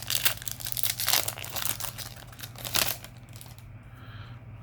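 Foil trading-card booster pack wrapper crinkling and rustling as it is handled or torn open, busy for about three seconds and then quieter, over a low steady hum.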